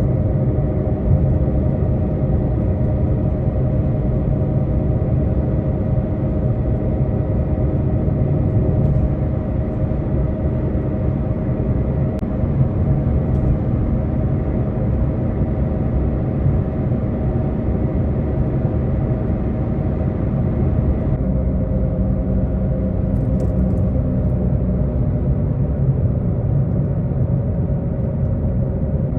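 Steady in-cabin drive noise of a small Chevrolet car cruising on the road: a low rumble of tyres and engine drone with no let-up. About two-thirds of the way through the upper hiss drops away and the rumble carries on.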